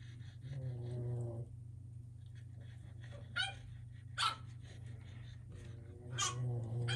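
Boston Terrier puppies barking and growling in play: a drawn-out growl about half a second in and again near the end, with short sharp barks in between.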